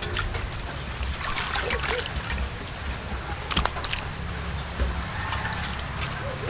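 Water splashing and trickling in a steel bowl as chicken gizzards are washed by hand, with a few sharp splashes and clicks.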